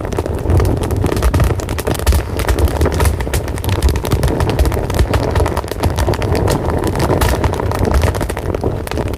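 Fire burning, with a steady low rumble and dense, continuous crackling pops.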